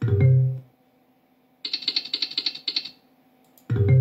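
Online slot machine game sounds: a short low tone, then rapid ticking, about eight ticks a second, as the reels spin for about a second and a half, then another short low tone near the end.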